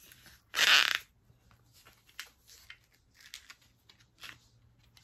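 A clear plastic photo card case being handled: one brief loud plastic scrape about half a second in, then faint clicks and rustles of the case and cards.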